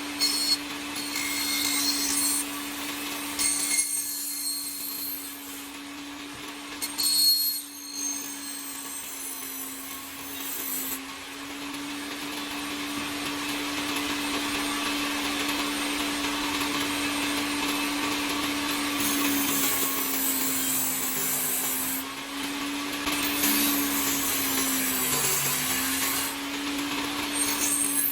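Electric power tool running with a steady hum while working wood, with scratchy cutting noise over it. The hum dips briefly in pitch a few times in the second half, as if under load.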